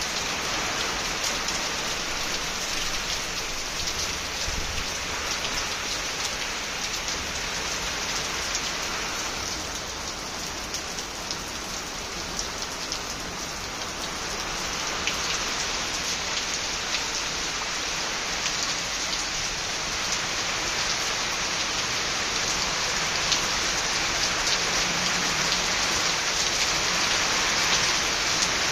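Heavy rain falling steadily, a dense hiss of countless individual drop hits. It eases slightly partway through and grows a little heavier near the end.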